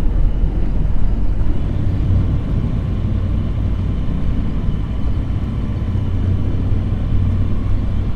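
An engine running steadily with a low, even rumble.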